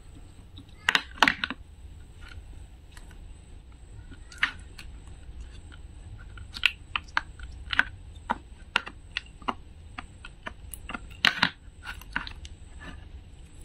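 Green slime in a plastic tray being cut with a toy wooden knife and then pressed and squeezed by fingers: irregular sticky clicks, pops and squelches, with louder clusters about a second in and again near the end.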